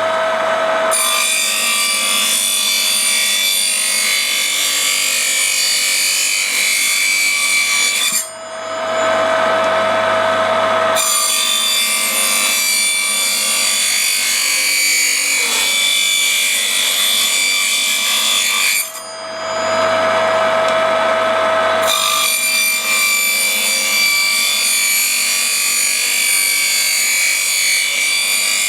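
Homemade table circular saw, driven by a 550 W capacitor-run motor at 3000 rpm and fitted with a fine-toothed metal slitting cutter as its blade, ripping narrow wooden slats. It makes three long cuts, and between them, about 8 and 19 seconds in, the cutter briefly spins free with a steady tone.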